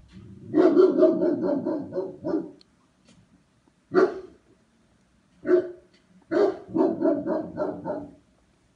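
German shepherd barking at the yard gate in two quick volleys, with single barks between them about four and five and a half seconds in.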